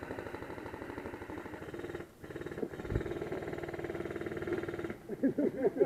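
Airsoft electric gun firing on full auto: a rapid mechanical rattle over a steady gearbox-motor whine, in two long bursts broken briefly about two seconds in and stopping about five seconds in.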